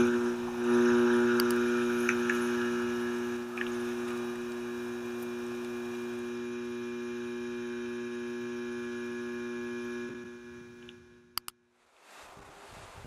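Field recording of a Hydro-Québec electrical transmission substation: a steady electrical hum with several higher overtones. The hum fades out about ten seconds in, two sharp clicks follow, and a rushing noise starts near the end.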